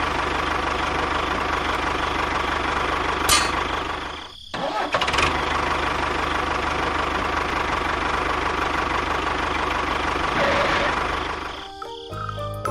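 Tractor engine running steadily. It cuts out about four seconds in, starts up again, and fades away near the end. There is a single sharp click about three seconds in.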